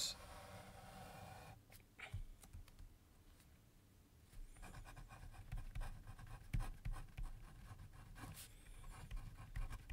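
Faint pen writing on paper: a quiet stretch with a light tap about two seconds in, then from about four and a half seconds on a run of short, quick pen strokes as a line is drawn and a word handwritten.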